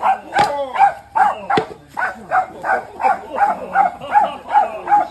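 A dog barking rapidly and evenly, about two to three barks a second. Two sharp smacks in the first two seconds: a frying pan hitting the attacking alligator.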